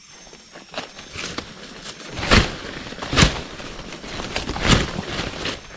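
Footsteps and rustling through forest undergrowth and leaf litter, with three louder thumps in the second half.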